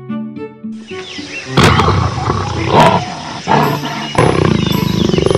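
Music with short melodic notes, then a big cat roaring and growling loudly from about a second and a half in, with several strong roars and a rough, pulsing growl near the end.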